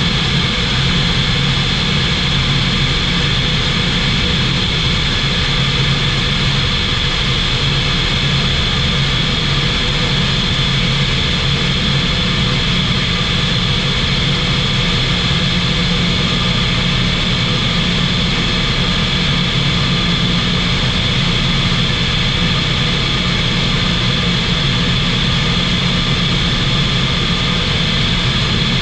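SportCruiser light aircraft's Rotax 912 engine and propeller droning steadily at constant power in flight, a low hum with a steady high tone over it.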